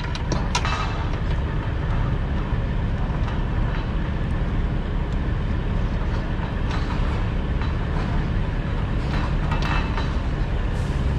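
Steel load chain clinking and rattling as it is lifted and pulled over a flatbed load. The clinks come near the start and again a little before the end, over a steady low rumble.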